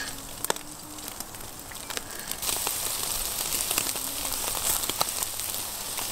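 Fatty meat on skewers sizzling over hot charcoal, with many small crackles and pops as fat drips onto the coals. The sizzle grows louder a little over two seconds in.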